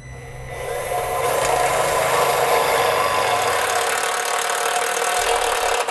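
Milwaukee cordless impact driver running steadily as it drives a self-tapping screw through a steel mounting bracket into the vehicle's frame, building up over the first second.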